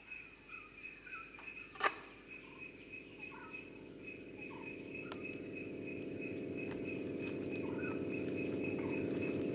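Jungle ambience: a steady insect trill with short bird chirps scattered through it, and a low hum that grows steadily louder through the second half. There is one sharp click about two seconds in.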